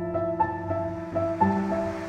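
Background music: a keyboard plays a repeating figure of short notes, about three a second, over a held low note. A soft hiss swells in under it toward the end.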